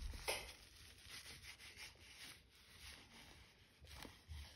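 Faint rubbing and light handling sounds of a cloth scrubbing a plastic baby doll, with a short louder scuff just after the start.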